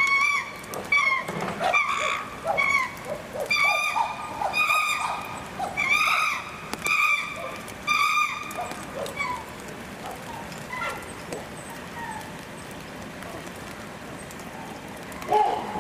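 Chimpanzees screaming in a run of repeated high calls, several a second at first, thinning out after about nine seconds: the noise of excited, tense males.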